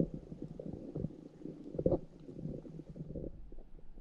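Muffled underwater sound picked up by a camera held below the surface: low rumbling with irregular soft knocks and thuds, dull and without any high end.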